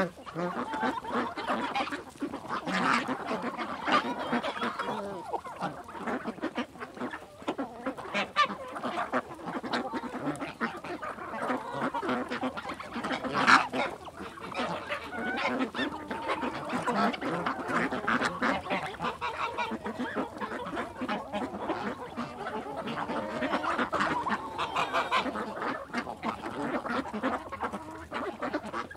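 A flock of geese and ducks calling continuously, honking and quacking over one another, with one louder call about halfway through.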